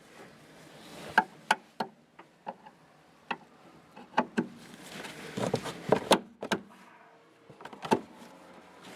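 Irregular sharp knocks and clicks, about a dozen, bunched most thickly a little past the middle: a new Stabilus trunk-lid gas strut being whacked onto its upper mount so that its spring clip seats in the groove.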